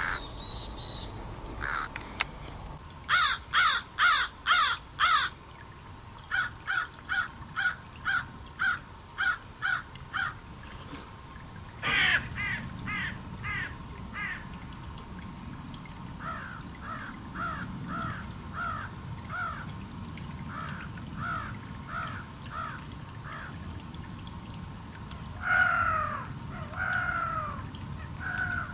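Harsh, caw-like animal calls repeated in several series at about two a second, the loudest run a few seconds in, a single sweeping call about halfway, then shorter down-slurred notes and two loud calls near the end.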